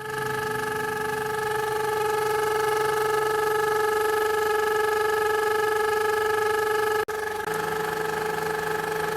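2003 Honda Civic engine running with a steady, high, multi-toned whistling chirp, which the owner puts down to a hose that needs replacing. The sound breaks off briefly about seven seconds in.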